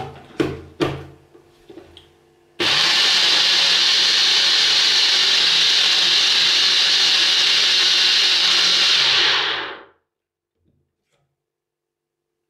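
A blending cup knocks a few times as it is set onto a personal blender base. Then the blender's motor runs loudly and steadily for about seven seconds, blending chopped sweet potato, seeds and water into a thick filling, and stops abruptly.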